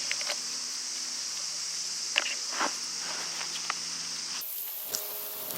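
Light rustles and clicks of hands working in a garden, over a steady high insect drone that cuts off suddenly about four seconds in.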